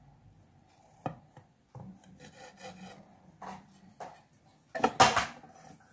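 Kitchen knife cutting a soft rolled bread-and-cream piece on a metal plate: rubbing, scraping knife strokes with a few sharp clicks, and a louder scrape about five seconds in.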